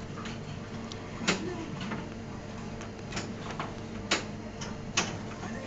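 Pinball machine in play: sharp clacks of the flippers and the ball striking the playfield, loudest about a second in, about four seconds in and near the end, over a steady low hum.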